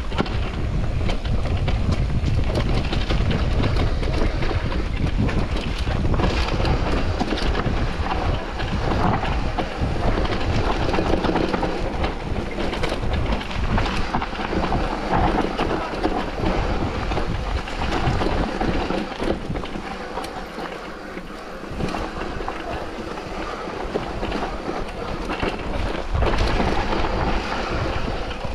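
Mountain bike descending a rough trail at speed: tyres running over dirt and stones with a constant rattle of chain and frame, and wind buffeting the microphone. The rumble eases briefly about two-thirds of the way in.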